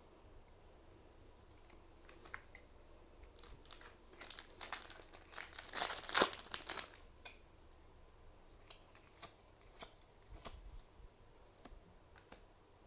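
Plastic packaging crinkling as it is handled, in a dense stretch of a few seconds near the middle, with scattered light clicks of cards being handled before and after.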